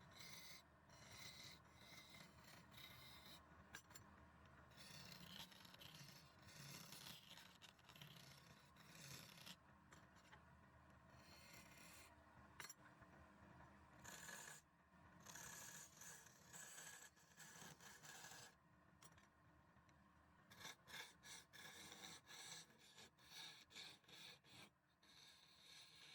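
Faint scraping and rasping of a tool against wood, coming in stop-start strokes with short pauses between them.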